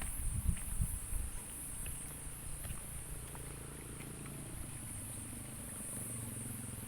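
Insects chirring steadily in a high pitch, in even pulses, with a few soft low thumps in the first second.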